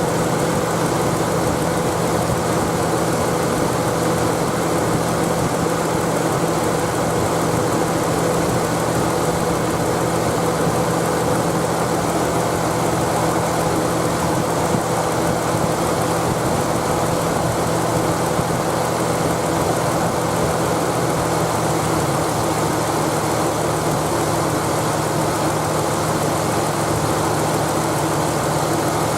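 Nissan Elgrand E51 engine idling, running steadily with a constant hum and no change in level.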